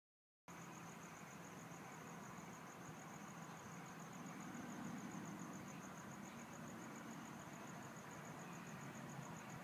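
Faint cricket trill, a thin high note pulsing rapidly and evenly without a break, over a low steady background hum. The sound begins about half a second in.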